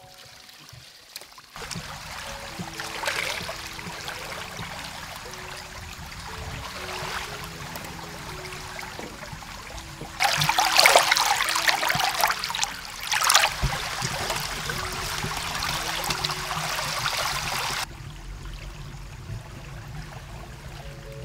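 Water splashing and sloshing around a person wading and working in muddy floodwater. The splashing is much louder for several seconds around the middle.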